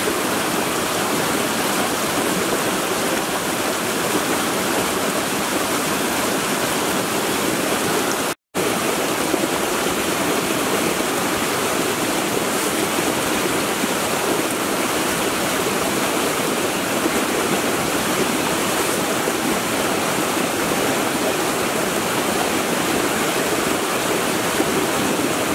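Creek water rushing and splashing down small rocky cascades, a steady rush at a constant level that breaks off for an instant about eight seconds in.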